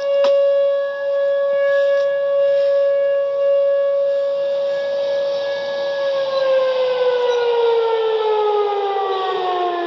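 Whelen WPS-2806 electronic siren sounding a steady tone; about six seconds in, its pitch begins sliding steadily down as the siren winds down. A short click sounds just after the start.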